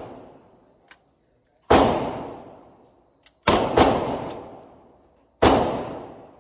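Rifle shots from an FN 15 Tactical II AR-type rifle with a binary trigger: four sharp reports, each ringing out for about a second, as an earlier shot fades at the start. Two of them come a fraction of a second apart in the middle, the binary trigger firing once on the pull and once on the release.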